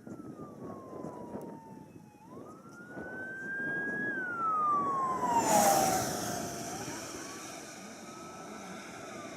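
A siren wailing, its pitch sliding slowly up and down over a few seconds at a time, over steady background noise. A rushing noise swells and fades about five to six seconds in.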